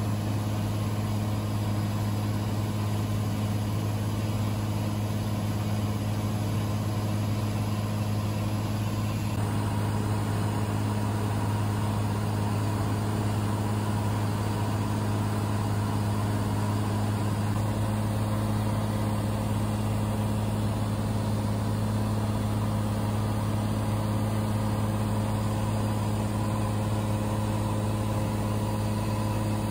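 Cessna 182 cabin noise in cruise flight: the piston engine and propeller's steady, unchanging low drone.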